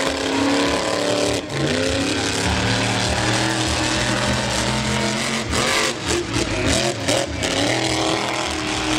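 Lifted show truck's engine running and revving as it drives the dirt track, its pitch rising and falling with the throttle. Between about five and a half and seven and a half seconds in, the sound turns choppy with uneven bursts.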